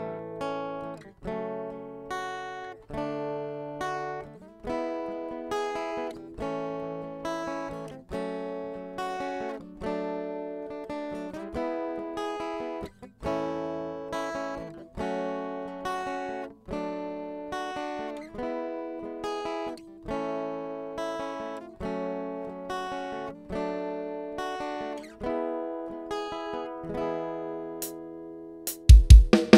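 Karaoke backing track of a Thai luk thung song with no lead vocal: acoustic guitar strumming chords at a slow, even pace. A drum hit comes in near the end.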